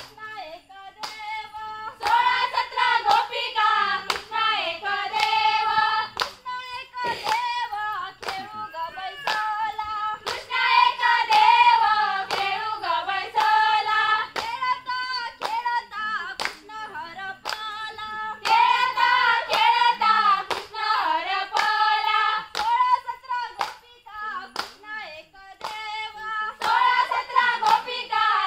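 A group of women singing a Konkani folk song in phrases of a few seconds with short breaks between them, kept in time by steady hand-clapping from the dancers, about two claps a second.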